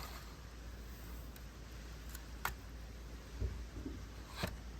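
Quiet outdoor ambience: a low, steady wind rumble on the microphone, with a few faint clicks and knocks spread through it.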